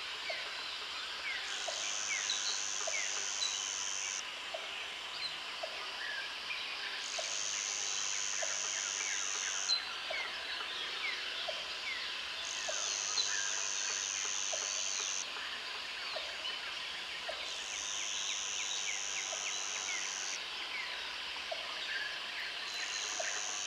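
Tropical jungle ambience: many birds chirping and calling over one another. A high insect chorus swells on and off about every five seconds, and a short low call repeats about once a second underneath.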